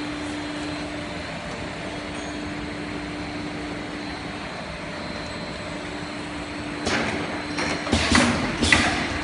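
Bottle filling and capping line running with a steady machine hum and a constant low drone. From about seven seconds in comes a quick run of sharp clacks and knocks, plastic bottles and capping parts knocking at the star-wheel capping station.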